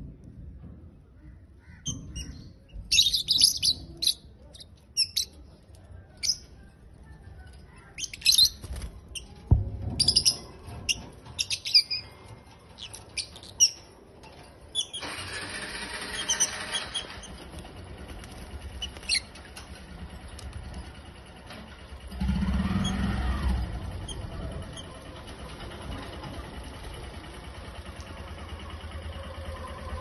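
A flock of caged lovebirds chirping and squawking in sharp, high bursts, thickest in the first half. Later the chirps thin out over a steady background hiss, and a low rumble rises and fades a little past two-thirds of the way through.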